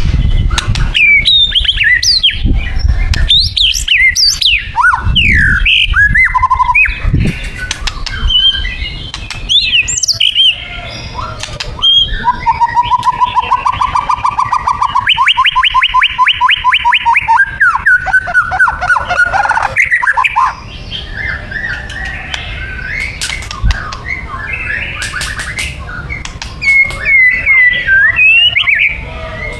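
White-rumped shama (murai batu) singing a loud, varied song of whistles and sweeping notes, with a fast run of rapidly repeated notes about halfway through and a quieter stretch near the end before the song picks up again. Sharp clicks are scattered through it.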